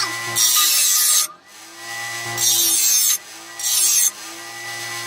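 Bench grinder running, with a steel lawn mower blade pressed against its fine wheel in three short grinding passes of about half a second each, the motor's steady hum carrying on between them.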